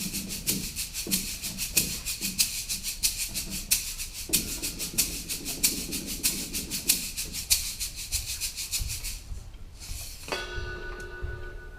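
Pit orchestra music: a shaker playing a steady, fast rhythm over soft low notes, stopping near the end, when a held chord of several steady tones comes in.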